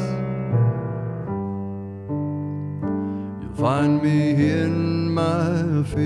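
Piano playing slow held chords; about three and a half seconds in, a male singing voice with vibrato comes in over the piano.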